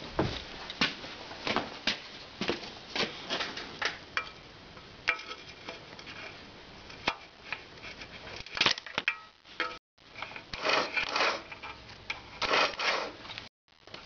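Irregular clicks, knocks and rustling from tools and hands working around a motorcycle's starter motor and solenoid, with handling noise on the microphone. No starter motor or engine turning is heard.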